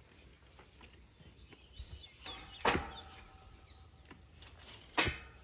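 Two sharp knocks about two and a half seconds apart, with a faint high rasp before and around the first.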